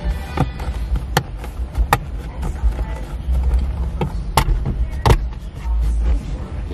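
Sharp plastic clicks and knocks as a replacement center console lid on a 2002 GMC Sierra is worked on its hinges and closed: about six strikes, the loudest two a little past the middle, over a steady low rumble.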